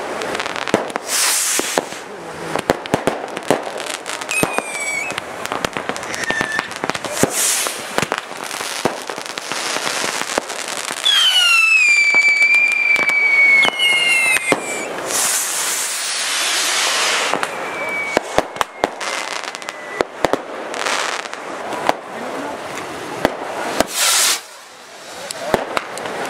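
Fireworks going off in a rapid string of sharp bangs and crackles. Several whistles fall in pitch and then hold; the longest runs from about eleven to fourteen seconds in, over a dense crackling hiss.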